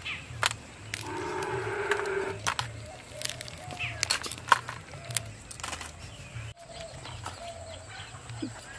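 Live mud crabs being handled: sharp clicks and taps of shell on a steel plate and a woven basket. About a second in, an animal gives one drawn-out call of about a second and a half, and faint bird chirps follow later.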